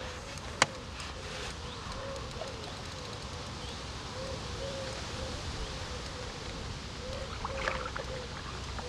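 Steady outdoor background rush with one sharp click about half a second in, and faint short low notes repeating every second or so.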